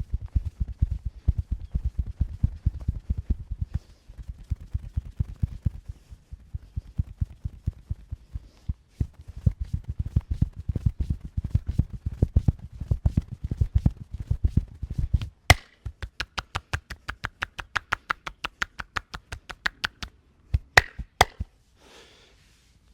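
Hands striking a person's body in rapid percussive massage: dull, fast, rhythmic thumps, turning about 15 seconds in to sharper, brighter slaps at a similar pace. A few sharp cracks come near the end.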